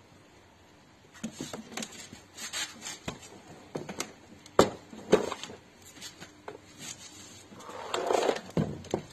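Hands handling a Seat Leon door's wiring harness and plastic trim: scattered clicks and knocks with rustling, two sharp clicks about halfway through and a longer rustle near the end.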